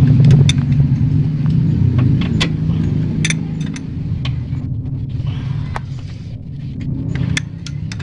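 Isuzu Panther diesel engine idling with a steady hum, while metal tools clink sharply against the engine bay now and then, a dozen or so times.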